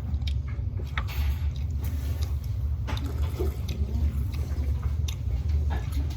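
Wet eating sounds as jjajangmyeon noodles are chewed and slurped, with scattered small clicks, over a steady low hum.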